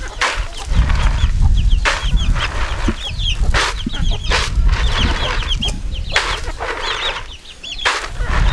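Chickens clucking, with many short high peeps running throughout. Under them come repeated swishing rattles, about every one and a half to two seconds, as groundnuts are tossed and winnowed in a plastic basin.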